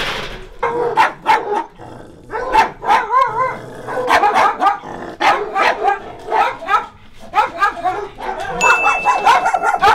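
Dogs barking and yapping rapidly and without a break, loud and overlapping, with a short thin steady high tone near the end.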